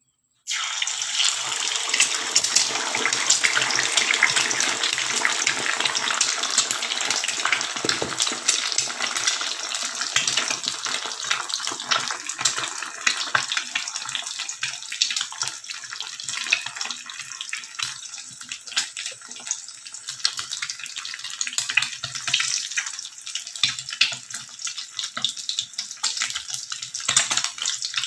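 Food sizzling and crackling in hot oil in a pan. It starts suddenly about half a second in, then eases off somewhat after the first dozen seconds.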